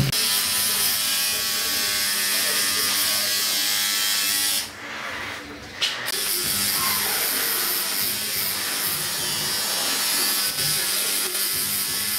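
Electric tattoo machine buzzing steadily as it works ink into skin, breaking off for about a second and a half near the middle before running again.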